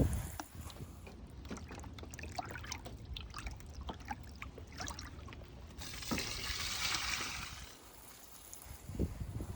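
Water trickling and dripping in many small drops, then a steady hissing pour for about a second and a half. It sounds like a watering can soaking the soil with nematode solution. A few low thuds come near the end.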